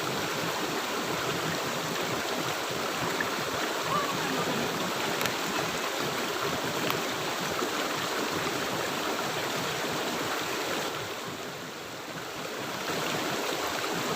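River water running steadily, an even rushing noise that eases off for a second or two about eleven seconds in.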